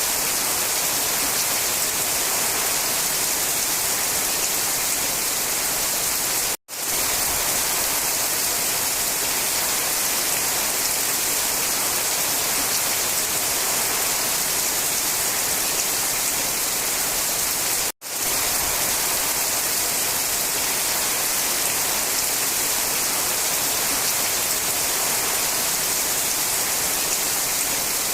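Steady rain falling, a dense even hiss strongest in the high end, broken by two sudden split-second dropouts, once about a quarter of the way in and again past halfway.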